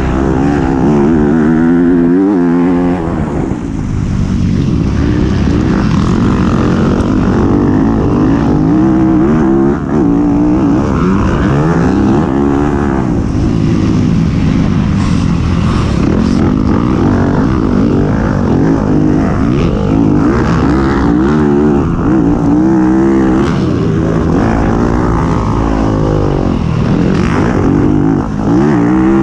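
Race vehicle's engine at racing speed, its pitch repeatedly climbing under acceleration and dropping sharply at gear changes, over a steady rush of noise.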